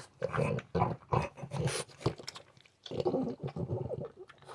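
French bulldog making a run of short, pig-like grunting snorts, about two a second, then after a short pause a longer rattling snort.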